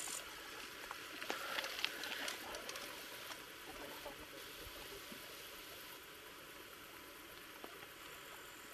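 Mountain bikes passing on a dry dirt trail: faint crackle of tyres on grit with scattered light clicks, busiest in the first few seconds, over a steady faint hiss.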